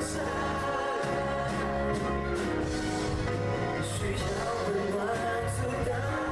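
A Mandarin pop ballad playing, with a singer's voice carrying the melody over the backing.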